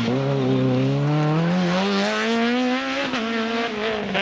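Peugeot 206 rally car engine revving hard under acceleration. Its pitch climbs for about three seconds, drops sharply at a gear change, then climbs again.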